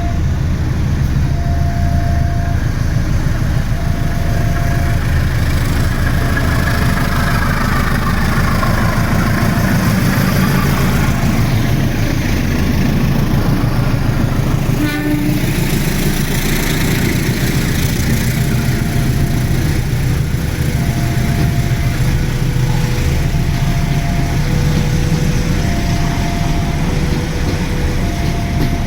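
CC204 diesel locomotive running with a deep, steady engine rumble as it pulls the train out. Over it, an electronic warning alarm repeats an alternating high-low two-tone signal, about one tone a second, with a short break about halfway through.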